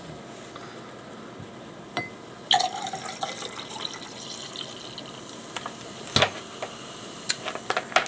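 A dark drink poured from a glass bottle into a drinking glass, the pour lasting about three seconds. Sharp knocks come as the pour starts and again about six seconds in.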